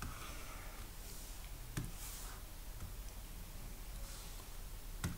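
Quiet room tone with a steady low hum, broken by two faint short clicks, one about two seconds in and one near the end.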